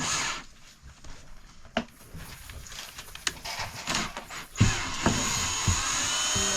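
Light clicks and knocks of handling, then about four and a half seconds in a small electric motor starts and runs steadily with a high whine.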